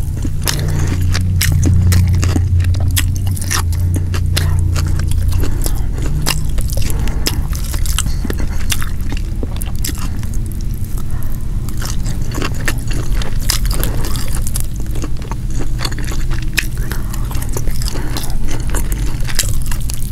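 Close-miked chewing of a mouthful of deep-fried striped bass, rice and cucumber: many quick wet clicks and crunches. A low steady hum runs underneath, strongest in the first few seconds.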